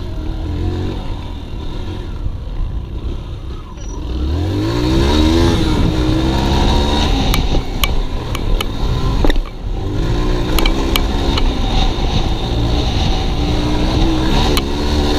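Dirt bike engine heard from on board, revving up hard with a steep rise in pitch about four seconds in. It backs off for a moment near the middle and then pulls high again. Sharp little ticks come now and then through the second half.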